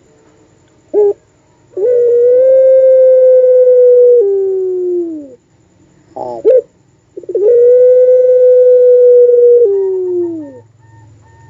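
A puter pelung dove giving its long drawn-out call, likened to a wolf's howl: a short note, then two long, level, held coos, each ending in a downward slide, with a quick stutter of short notes between them.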